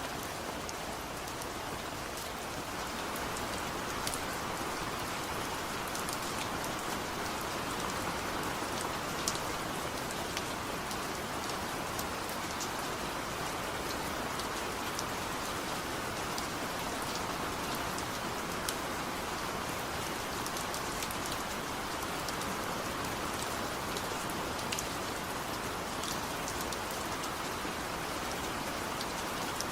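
Steady, gentle rain falling, a continuous hiss with individual drops ticking on a hard surface now and then.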